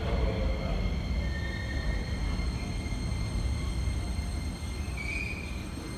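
Electric commuter train on the rails with a steady low rumble, and brief high-pitched wheel squeals about a second and a half in and again near the end.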